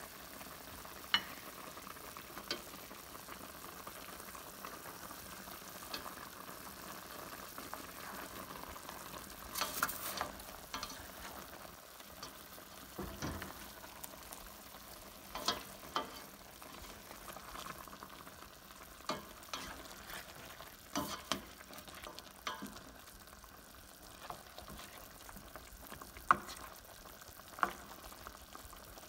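Chicken adobo simmering in a stainless steel pot, the sauce bubbling steadily, while a spoon stirs the chicken pieces and knocks against the pot every few seconds.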